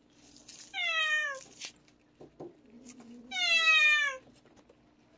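A domestic cat meowing twice, about two and a half seconds apart; each meow lasts under a second and falls in pitch at the end.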